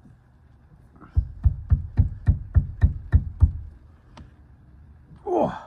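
Quick run of about nine sharp metallic knocks, roughly three to four a second, then one more knock a moment later, from a hand tool working a rear-door hinge bolt on a Honda Element.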